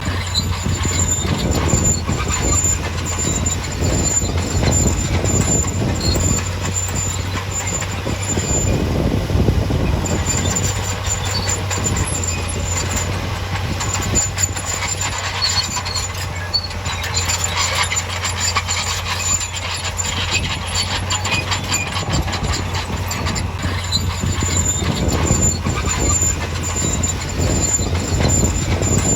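Heavy earthmoving machinery at work: a diesel engine running steadily under a dense clatter of metallic clanks and squeals.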